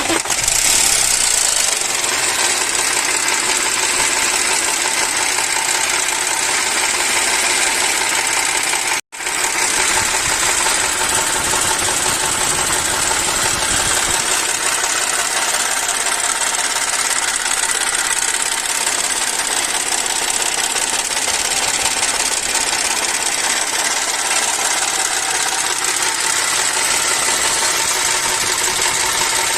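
Audi A4 V6 engine starting and running steadily at idle with the engine noise that comes with a flickering low-oil-pressure warning, which the mechanic thinks could be the oil pump. The sound cuts out for an instant about nine seconds in.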